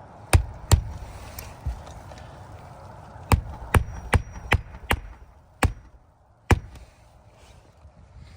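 Hammer driving a roofing nail into a new asphalt shingle: two strikes, a pause, then a run of about six quick, evenly spaced strikes, then two more spaced-out blows.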